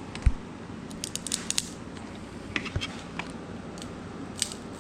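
Small hand-tool and handling noises, light clicks and scrapes of a screwdriver working screws out of a rifle's rubber butt pad. There is one dull thump about a third of a second in.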